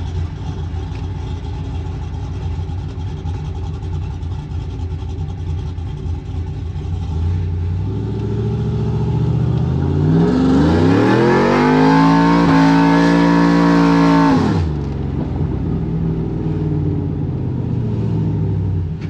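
Cammed LS V8 in a Chevrolet Silverado, heard from inside the cab. It runs steadily at low speed, then climbs in pitch under throttle for about three seconds, holds high, and drops abruptly when the throttle is released, settling back to its lower steady note.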